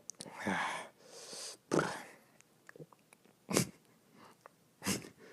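A person gulping air and belching it back up in quick succession: about five short, abrupt bursts, roughly one a second, with fainter gulps between them.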